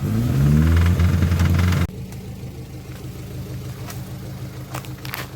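Off-road 4x4's engine revving with a rising pitch under load. About two seconds in it drops off abruptly to a quieter steady engine running, with a few light clicks.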